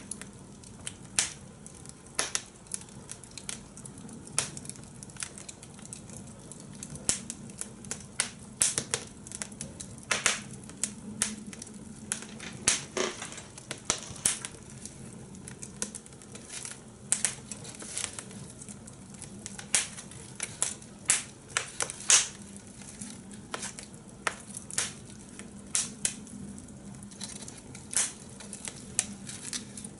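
Fire in a fire pit crackling: irregular sharp pops and snaps, about one or two a second, over a faint steady hum.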